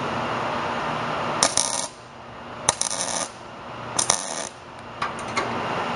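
Wire-feed (MIG) welder tack-welding steel square tubing: three short bursts of crackling, spattering arc, each about half a second long, with a few faint clicks after.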